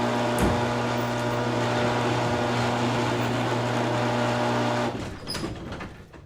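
Garage door closing: the opener's electric motor hums steadily as the door runs down, then cuts off about five seconds in, and a brief rattle follows and dies away.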